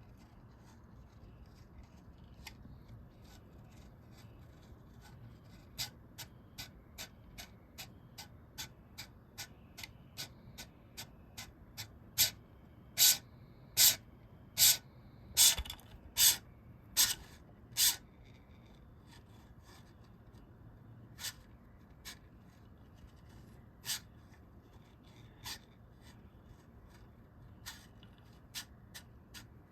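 A 3D-printed linear servo motor moving its slider back and forth in quick strokes, each stroke a short high-pitched swish. They come steadily, more than one a second, are loudest for about six seconds midway through, then thin out to occasional single strokes.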